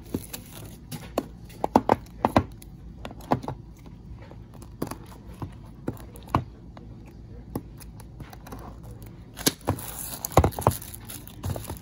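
Small shrink-wrapped cardboard boxes of die-cast model cars being handled and pulled from a shipping carton: irregular taps, knocks and scrapes of cardboard. A busier burst of plastic wrap crinkling and tearing comes near the end.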